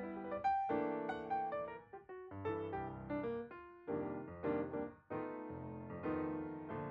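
Background music: piano notes played in a light, steady rhythm, with a short break just before two seconds in and another about five seconds in.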